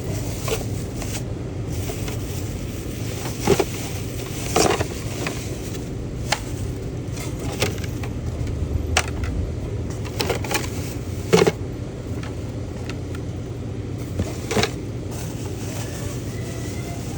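Scattered short scrapes and crinkles of parcel packaging being handled, over a steady low hum.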